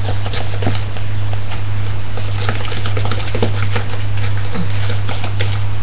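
Cake mixture being beaten by hand with a spoon in a mixing bowl: irregular clicks and scrapes of the spoon against the bowl, over a steady low hum.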